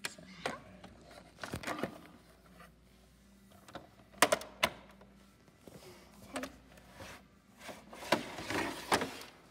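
Irregular clicks and knocks of hard plastic dollhouse parts and a doll being handled, with several sharp taps about four seconds in and a cluster of rattles near the end.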